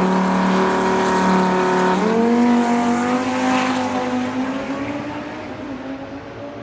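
Heavily modified 2400+ hp Dodge Viper V10 drag car at full throttle on a launch down the drag strip. The engine note holds level for about two seconds, then jumps up in pitch and keeps climbing as the sound fades with the car's distance.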